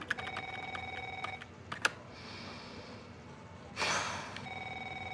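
Electronic desk telephone ringing with a warbling trill: one ring in the first second and a half and another about four and a half seconds in. A few light clicks come during the first ring, and a brief breathy rush of noise just before the second.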